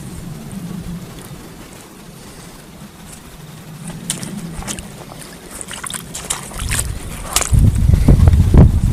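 Wind buffeting the microphone, growing loud over the last two seconds or so, with scattered clicks and knocks from handling gear before it.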